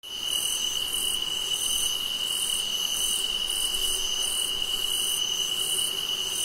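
Night insects calling: one steady, unbroken high trill, with a second, higher insect pulsing a little more than once a second.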